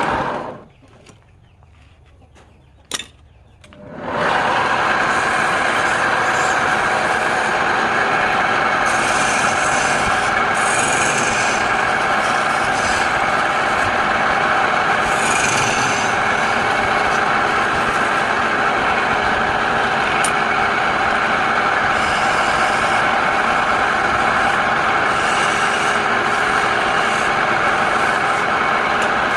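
A wood lathe running with a turning tool cutting the spinning wood: a steady rasping scrape. It drops away shortly after the start, with a single click during the lull, and comes back about four seconds in.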